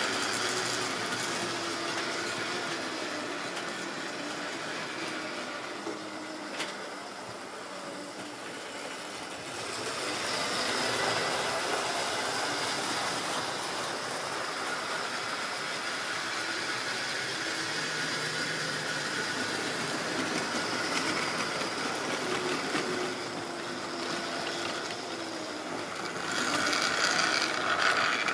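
Model trains running on the layout: a steady whirr of the locomotive motors and a mechanical rattle of the wheels on the track, louder about ten seconds in and again near the end.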